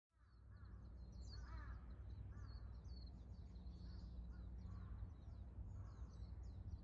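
Wild birds calling: many quick high chirps with a few lower, fuller calls scattered among them, over a low steady rumble.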